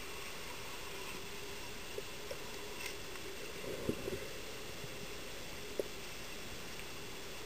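Steady muffled hiss with a faint hum, as picked up underwater in a swimming pool, broken by a few faint clicks and knocks, with a small cluster of them about four seconds in.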